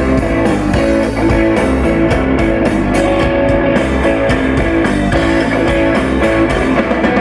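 Live rock band playing an instrumental passage between vocal lines, led by guitars with bass and drums.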